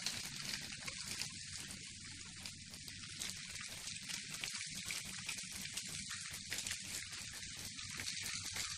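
A steady fine crackling patter of ice and meltwater from ice-coated trees after an ice storm, with a low steady rumble underneath.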